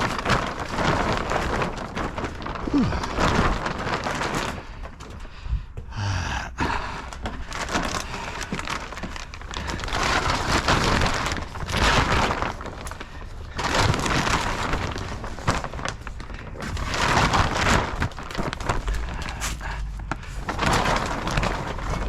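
Plastic tarp and pool cover rustling and crinkling as they are pulled and handled, in uneven swells of a few seconds each, with a few knocks.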